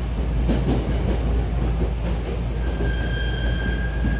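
Hankyu Takarazuka Line train running, heard from inside the car: a steady low rumble, joined about two and a half seconds in by a steady high squeal that holds on.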